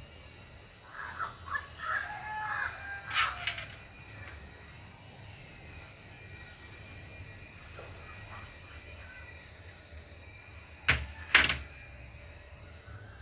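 Birds calling in the background: crow-like caws about one to three seconds in, over a faint high chirp that repeats steadily. Near the end come two sharp knocks, the loudest sounds, close together.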